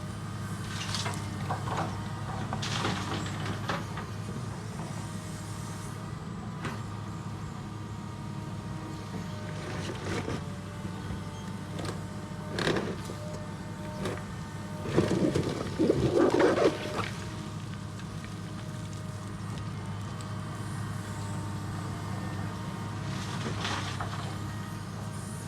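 Heavy construction machinery's diesel engine running steadily, with a held mechanical whine over it. Intermittent clanks and scraping come through, the loudest a cluster about fifteen to seventeen seconds in.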